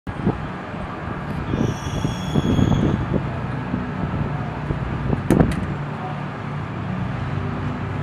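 Outdoor road traffic: vehicles running steadily with a low rumble. A short high-pitched squeal comes about two seconds in, and a sharp knock about five seconds in.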